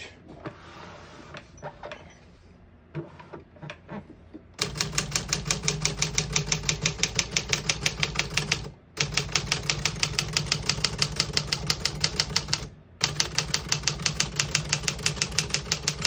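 Keys of a 1957 Remington Quiet-Riter manual portable typewriter: a few faint clicks, then from about four and a half seconds in, keys struck in a fast, even run of about seven a second, broken by two brief pauses.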